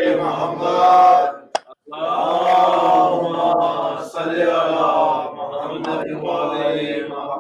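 A man's voice in a long-drawn, chant-like recitation, phrases held for about a second each, with a short break about one and a half seconds in.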